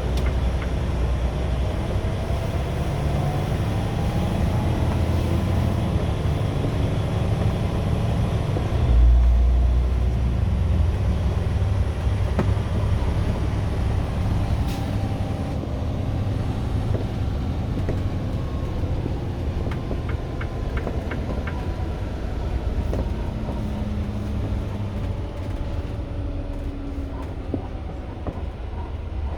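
2022 Renegade XL running with a steady low rumble, a heavy low thump about nine seconds in and a few faint sharp knocks later, the knocking noise the owner is trying to capture.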